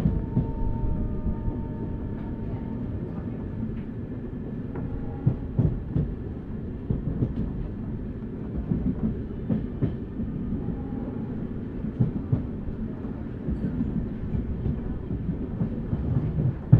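Passenger express train running along the track: a steady low rumble of the coach, with irregular knocks from the wheels over rail joints.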